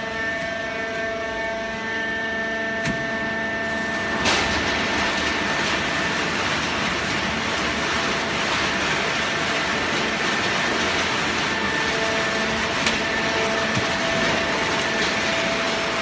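Fully automatic horizontal hydraulic waste paper baler running, a steady machine hum with several whining tones. About four seconds in, after a click, a louder steady rushing noise joins and continues.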